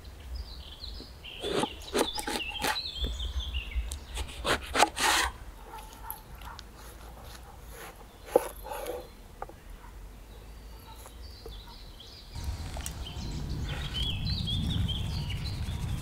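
Songbirds chirping, with a run of sharp knocks in the first five seconds and one more just past the middle: a cleaver working a mackerel on a wooden cutting board. A low rumbling noise sets in about three-quarters of the way through.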